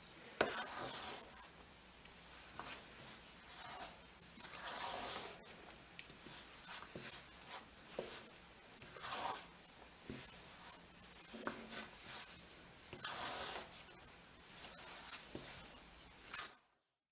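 Spatula stirring and pressing crumbly cookie dough in an enamel bowl: irregular scraping and rubbing strokes with a few light knocks against the bowl, stopping abruptly near the end.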